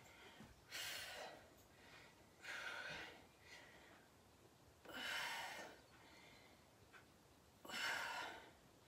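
A woman breathing hard while exercising: four short, faint breaths about two and a half seconds apart, in time with the movement.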